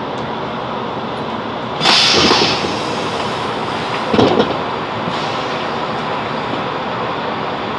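Chiltern Railways Class 165 Networker Turbo diesel multiple unit, with a steady running noise. A loud hiss breaks in about two seconds in, and a short clunk follows about two seconds later.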